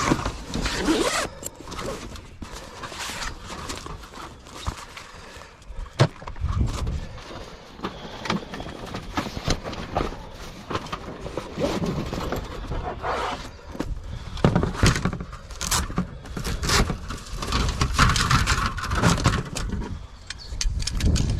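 Irregular knocks, thunks and scrapes, the handling noise of objects being moved about, with low rumbles in between.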